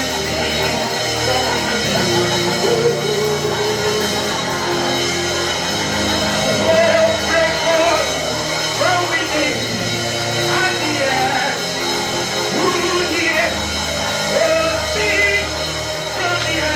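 Live gospel worship music: a band playing held keyboard chords over bass, with voices singing freely over it.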